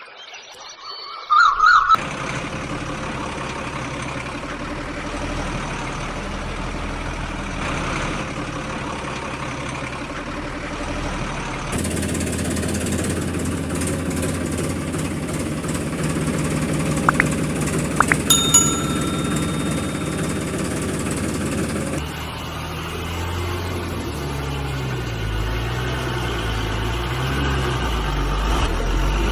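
Engine sound effect of a heavy vehicle such as a truck or tractor, running and idling in several clips that switch abruptly about two, twelve and twenty-two seconds in, with the engine note wavering in the last few seconds. A few short sharp sounds come around seventeen and eighteen seconds in, and a brief chirping tone comes just before the engine starts.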